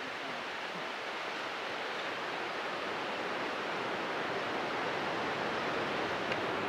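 Steady rush of flowing creek water, growing slightly louder.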